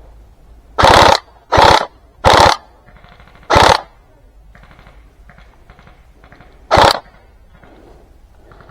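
Airsoft gun firing five short full-auto bursts, each a rapid rattle of shots about a third of a second long: four in quick succession in the first four seconds, then one more near the end.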